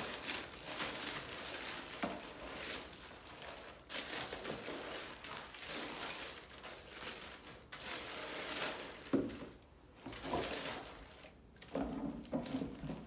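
Thin nylon wrapping crinkling and rustling as a sneaker is handled and unwrapped, with a few light knocks.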